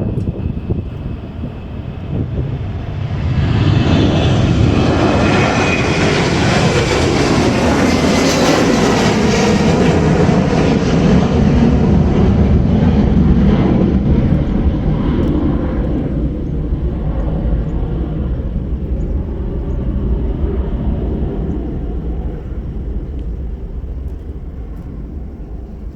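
Boeing 737-800's CFM56-7B turbofan engines at takeoff thrust. The jet noise swells about three seconds in as the airliner passes, with a high whine that falls in pitch at the loudest point, then fades away toward the end.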